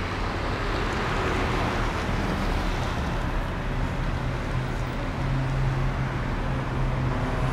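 BMW 328i's inline six-cylinder engine idling steadily as a low, even hum, with a hiss of outdoor air noise over it.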